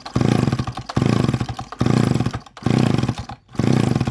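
McCulloch Pro Mac 610 two-stroke chainsaw being pull-started over and over, about once a second: a burst of rapid engine pulses on each pull that dies away between pulls, the saw not keeping running.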